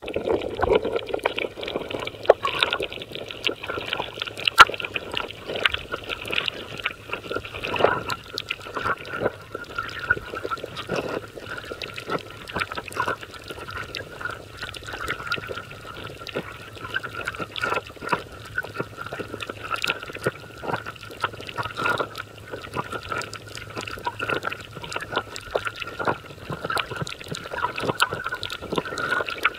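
Underwater sound picked up by a camera swimming over a coral reef: moving water with frequent sharp clicks and crackles, over a steady high hum.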